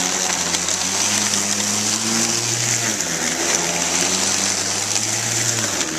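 Lawn mower running over a pile of dry leaves and shredding them into mulch, with a steady hiss over the engine note. The note shifts about three seconds in and again near the end as the mower works back and forth over the pile.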